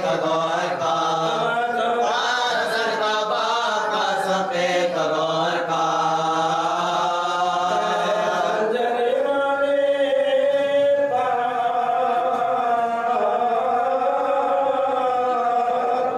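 A man chanting a marsiya, an Urdu elegy, unaccompanied, in long held melodic lines that rise and fall slowly.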